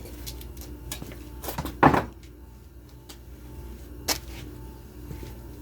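Clicks and knocks from hands handling parts and a hose on a small portable generator, the loudest about two seconds in and another about four seconds in, over a steady low hum.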